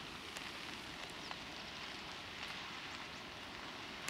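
Wildfire burning brush, crackling with scattered sharp pops over a steady rushing hiss.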